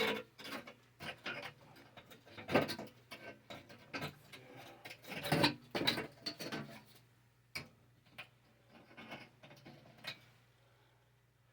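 Irregular knocks, clicks and rustling of hands handling and positioning a new attic fan and its mounting brackets against a wall, with the louder knocks about two and a half and five and a half seconds in.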